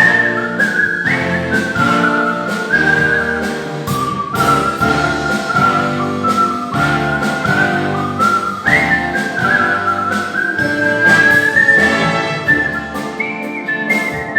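Artistic whistling of a melody with slides between notes, carried over an instrumental accompaniment.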